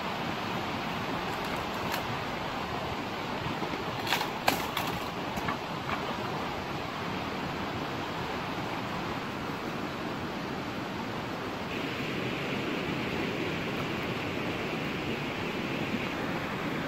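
Steady rushing outdoor background noise, with a few sharp snaps about four to five seconds in and a thinner, higher hiss joining about twelve seconds in.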